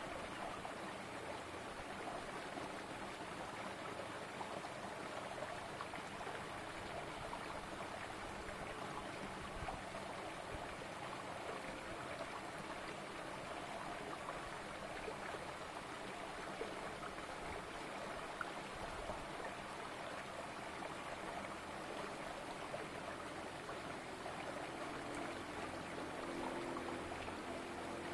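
Shallow rocky stream flowing steadily, water running down between boulders.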